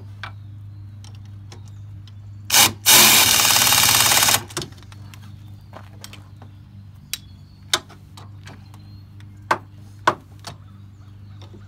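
Pneumatic wrench on an air hose, run in a short burst and then for about a second and a half, tightening a new oxygen sensor into the exhaust. Sharp metal clicks of tool handling are heard between runs, over a steady low hum.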